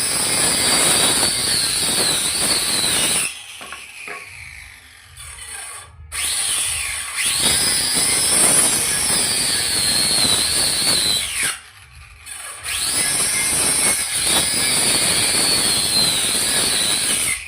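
A handheld electric power tool working wood, run three times for about four to five seconds each with short pauses between. Its high motor whine rises as each run starts and sags slightly while it runs.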